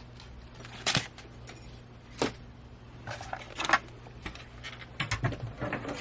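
Paper and craft tools being handled on a work table: a few separate sharp clicks and taps, then a quicker run of small clicks near the end.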